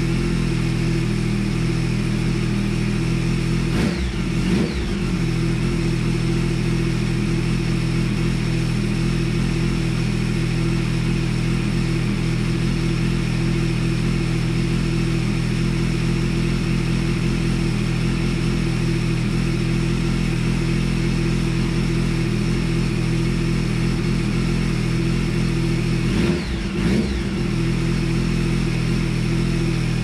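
Triumph three-cylinder motorcycle engine idling steadily at a fast warm-up idle of about 1650 rpm while its throttle bodies are being balanced. The note wavers briefly about four seconds in and again near the end.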